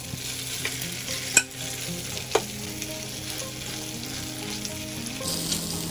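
Marinated mutton chunks sizzling as they shallow-fry in hot oil in a pan and are stirred, with two sharp clicks about a second and a half in and again a second later.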